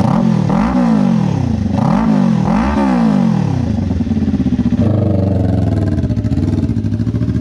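Kawasaki Ninja 400 parallel-twin engine idling, blipped three times in quick succession with the pitch rising and falling each time. From about five seconds in it settles into a steady, lower engine note as the bike rides off at low speed.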